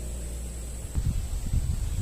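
Wind buffeting the microphone: irregular low rumbling and thumps that start about a second in, over a steady low hum.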